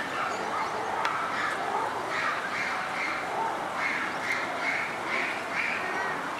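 Short animal calls repeated in quick runs, several a second, growing more frequent from about two seconds in, over steady background noise.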